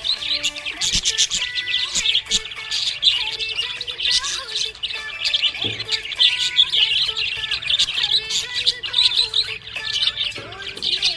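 Small pet parrots chirping and chattering continuously, in a rapid, dense stream of high chirps.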